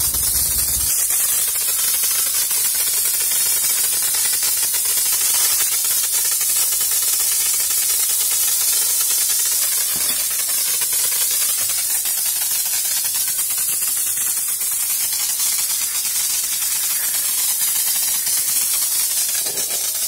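Steady loud hiss of a water jet mixed with compressed air spraying from the wand of a homemade pressure washer whose air comes from a refrigerator compressor. A low hum underneath stops about a second in.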